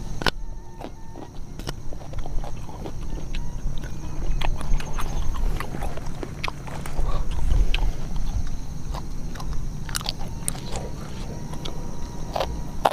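A person chewing and crunching raw vegetables close to the microphone: irregular crisp crunches and clicks.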